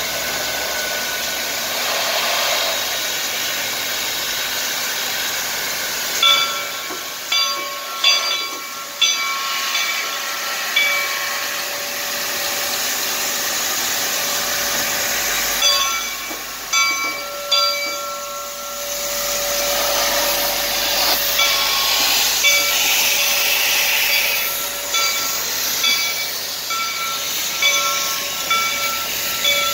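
Reading & Northern 425, a 1928 Baldwin steam locomotive, moving slowly with steam hissing from around its cylinders. From about six seconds in, its bell rings in repeated strokes, a little under one a second, in three spells with short breaks between them.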